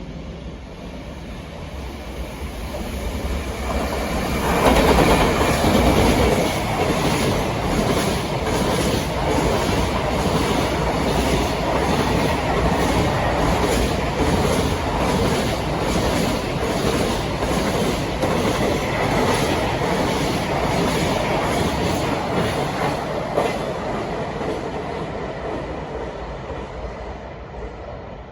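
A JR Freight train passing. The electric locomotive comes by about four seconds in, then a long string of freight wagons clacks in a steady rhythm over the rail joints before the sound fades away near the end.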